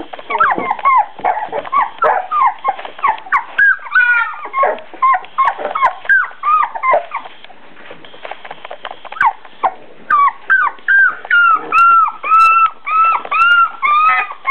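Four-week-old beagle puppies yipping and whining in quick short calls, two or three a second. They ease off briefly in the middle, then break into a steady run of about two yips a second near the end.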